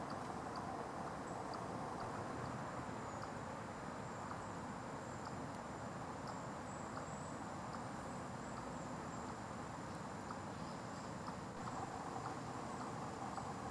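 Eastern chipmunk giving its repeated chip call: short high chirps about twice a second, steady and evenly spaced.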